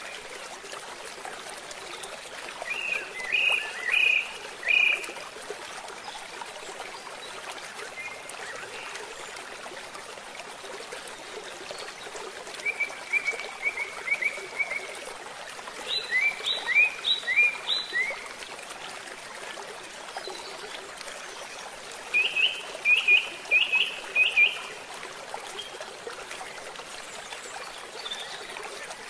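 A small stream flowing steadily, with birds chirping over it in four short bursts of quick repeated high notes.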